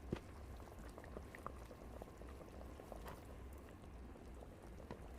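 Pot of chicken light soup simmering: faint bubbling with small scattered pops.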